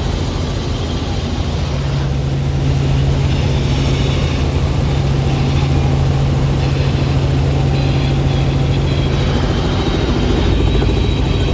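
Helicopter in flight heard from inside the cabin: a steady, loud rotor and engine drone. A faint high whine joins it about two-thirds of the way in.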